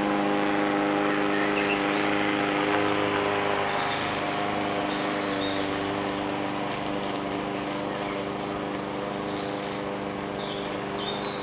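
Lawn mower engine running at a steady speed, growing slightly fainter as it moves away, with birds chirping.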